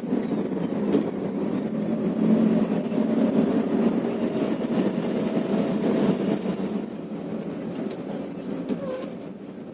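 Bus engine running with a steady drone that grows fainter over the last few seconds.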